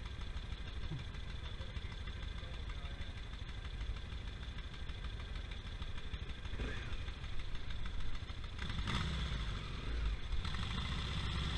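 Two engines idling side by side: a Honda CRF250L dual-sport motorcycle's single-cylinder engine and a dune buggy's engine. The sound grows louder about nine seconds in.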